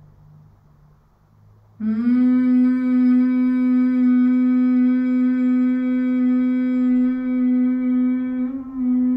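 A woman's closed-mouth humming in Bhramari pranayama (humming bee breath): after a quiet pause, one long, steady, medium-pitch hum starts about two seconds in and holds its pitch, with a brief wobble near the end.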